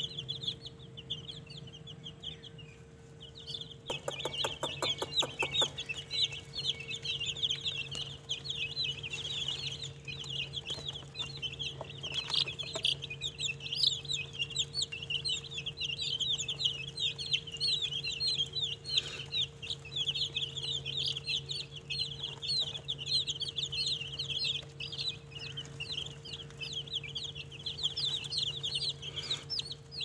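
A flock of baby chicks peeping continuously, many short high chirps overlapping without a break.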